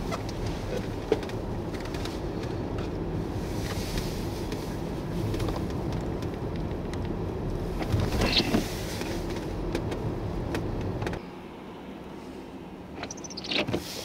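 Steady road and engine rumble heard inside a car driving on a snow-covered highway, with a windshield wiper sweeping across the glass about eight seconds in. The rumble cuts off abruptly near the end, leaving a quieter background.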